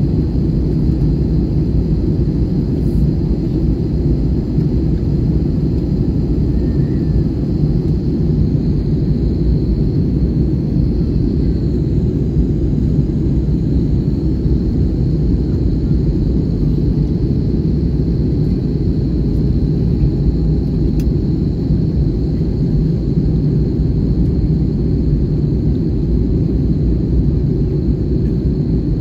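Steady low rumble of jet engine and airflow noise inside the cabin of an Airbus A321 on approach, with a faint steady high whine above it.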